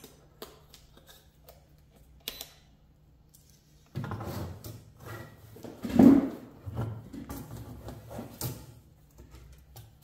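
Handling noise on a workbench: a few light clicks and taps, then from about four seconds in a run of rustling and knocks with one louder thud near the middle, as a plastic-cased ESR meter is set down and a circuit board and test probes are picked up.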